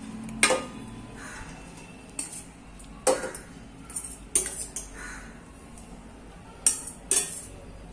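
A spoon clinking and scraping against a steel pan and the rim of a steel pressure cooker as cooked mutton curry is spooned out of one into the other: about eight sharp, short clinks at uneven intervals.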